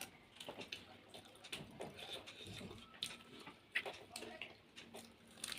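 Close-up eating sounds: chewing with irregular wet mouth clicks and smacks.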